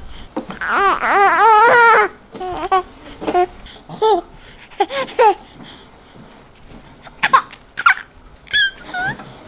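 A high-pitched, baby-like voice laughing and babbling: a long warbling giggle about half a second in, then short coos and gurgling sounds on and off.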